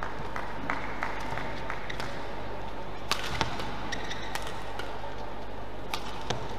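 Badminton rally: rackets striking the shuttlecock in sharp cracks, the loudest a quick pair about three seconds in and another pair near the end, over a faint steady tone.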